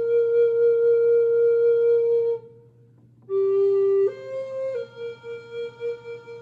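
A flute playing a slow melody: one long held note, a pause for breath of about a second, then a few short notes stepping up and back down.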